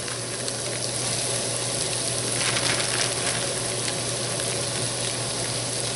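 Shredded cabbage, celery and onion frying in sesame oil in a pan: a steady sizzle with small crackles.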